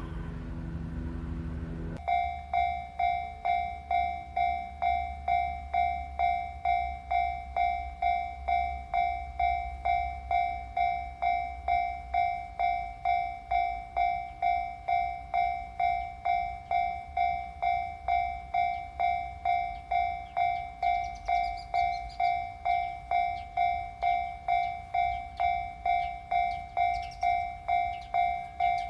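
Japanese level-crossing electronic warning bell starts about two seconds in and dings evenly, about three strikes every two seconds, signalling an approaching train. A low rumble runs underneath.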